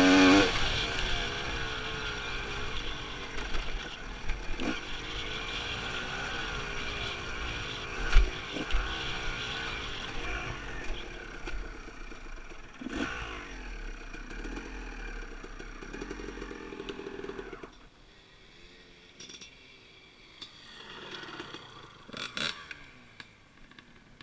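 Dirt bike engine revving hard at first, then running along with the pitch rising and falling as the throttle changes, dropping to a much quieter idle or coast about 18 seconds in, with a few knocks from the bike over the rough trail.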